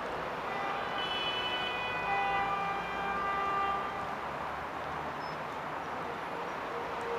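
Busy city street traffic noise. Several high steady tones sound together from about one to four seconds in, then fade.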